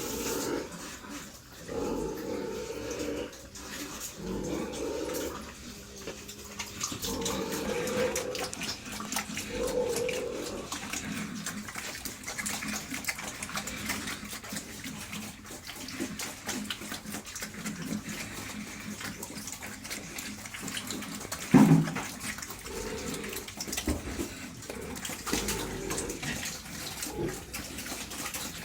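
Pigs grunting in short repeated low calls, with watery sloshing, as of pigs at wet feed. One sharp knock about three quarters of the way through is the loudest sound.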